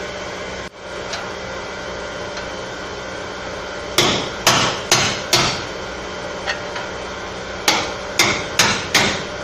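Hammer blows on a truck's sheet-metal body panel in dent repair, coming about two a second in two runs of four, with a lighter tap between the runs.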